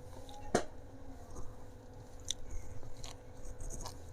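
A person eating close to the microphone: chewing and biting, with one sharp crunch about half a second in and a few lighter crunchy clicks after. A faint steady hum runs underneath.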